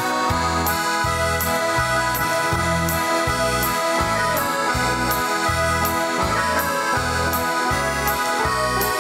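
Instrumental praise music: an electronic keyboard playing with an accordion-like tone over a steady bass-and-drum beat.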